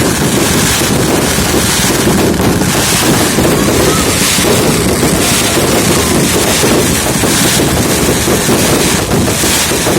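Dense fireworks barrage, many overlapping bangs and crackles merging into a continuous loud rumble.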